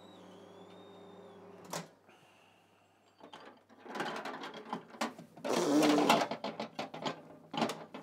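Microwave oven running with a steady mains hum, which cuts off with a click just under two seconds in as the door is opened. Then come clattering knocks and rustles as the contents are handled inside the oven, loudest about six seconds in.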